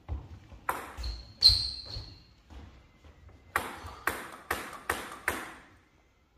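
Table tennis ball bouncing with sharp pinging knocks. A few irregular bounces come in the first second and a half, one ringing loudly. Then five even bounces about 0.4 s apart, typical of the server bouncing the ball before serving.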